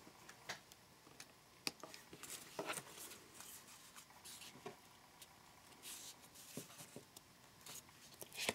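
Faint handling of paper and cardstock: scattered light taps and short rustles as a glued card cover is pressed and straightened.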